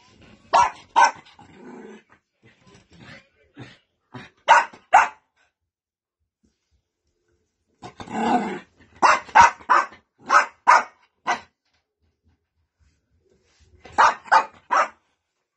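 Small white dog barking in short, sharp barks, in quick pairs and runs of four to six, with one longer growling bark a little past the middle.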